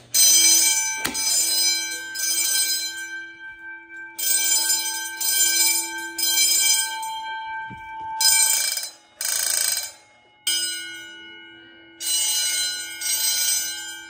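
Fire alarm bells ringing in the code 3 temporal pattern: rings of about a second each in groups of three, a short pause, then three again.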